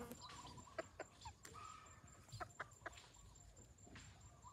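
Chickens giving a few faint, short clucks, with several sharp clicks in between.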